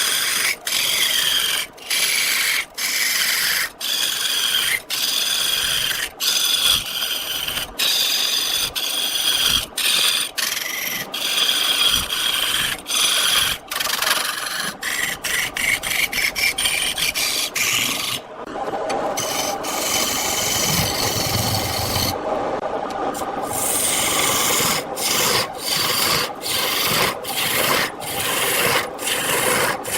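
Lathe turning tool cutting into spinning wood: a continuous scraping, shaving hiss, broken by many brief gaps.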